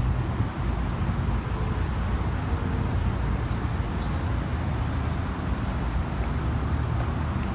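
Steady low rumble of a car engine running, with street noise around it.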